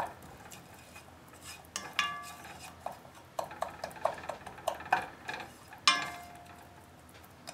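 Wooden spoon stirring minced garlic in olive oil in a stainless steel saucepan, scraping and knocking against the pan. Two of the knocks, about two seconds in and near six seconds, set the metal pan ringing briefly.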